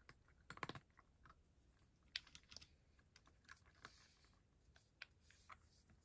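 A cat eating: faint, irregular small clicks of chewing and licking, a quick cluster about half a second in, then scattered single clicks.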